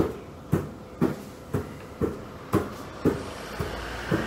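Background music beat: sharp, even hits at about two a second.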